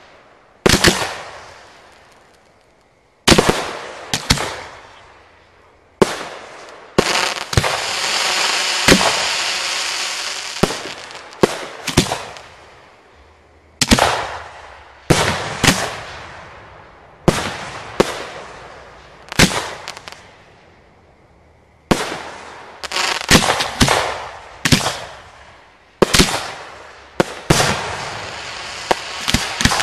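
Aerial firework shells fired from mortar tubes: a string of sharp bangs, roughly one every one to two seconds, each fading out over a second or two, with a stretch of steady crackling hiss from about seven to eleven seconds in.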